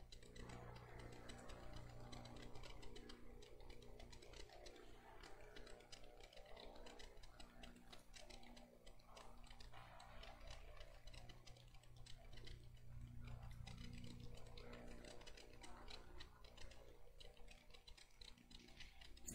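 Near silence: a faint steady hum with light, irregular ticking and scratching from a pen writing on paper at the pulpit.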